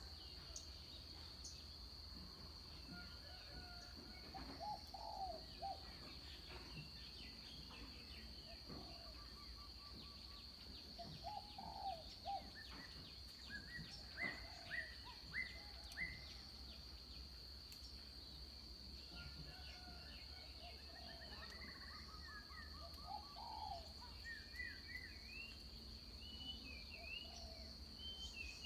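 Several birds calling with scattered short chirps and falling whistled notes, including a quick run of four sharp notes about halfway through. A steady high-pitched buzz, like an insect drone, and a low rumble run underneath.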